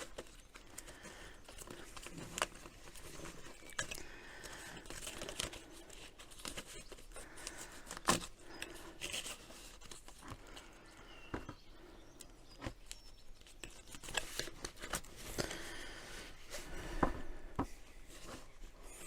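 Rustling and crinkling as flexible extraction hose is handled and fitted over a coupler, with scattered light clicks and knocks from the parts being worked.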